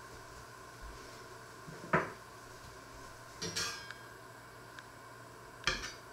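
Metal kitchen tongs clanking against a frying pan as a piece of fried meat is lifted out and set on a wooden board. There are three short clanks: one about two seconds in, a quick double clink a second and a half later, and one more near the end.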